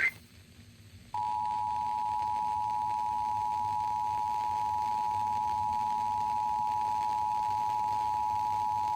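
Emergency Alert System two-tone attention signal (853 Hz and 960 Hz sounded together) broadcast over FM radio. It starts about a second in after a brief pause and holds steady, announcing that an emergency alert message, a severe thunderstorm warning, follows.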